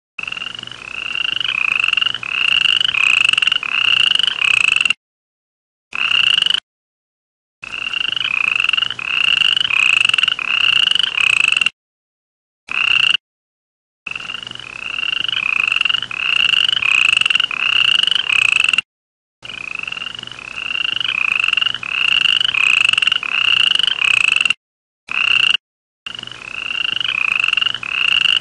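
Frog calling: a run of short, slightly rising notes, about two a second. The runs stop abruptly and start again several times.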